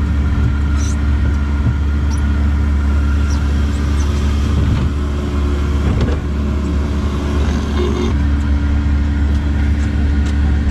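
A steady low hum from a small theme-park ride car moving along its track, with a few steady tones held over it.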